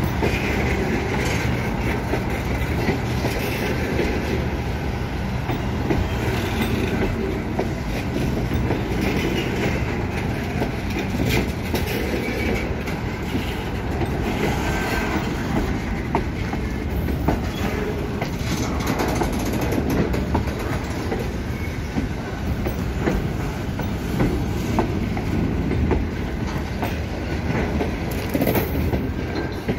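Freight train's container flat wagons rolling past at close range: a steady rumble of wheels on rail with scattered clicks over the joints.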